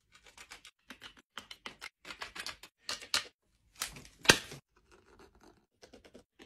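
A hand tool scraping and cutting caribou antler in short, irregular strokes, with one sharper, louder stroke a little past four seconds.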